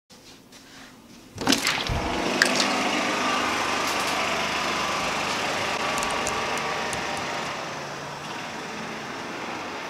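A balcony door is opened with a few sharp clacks, and a steady rushing outdoor background noise comes in and holds through the rest.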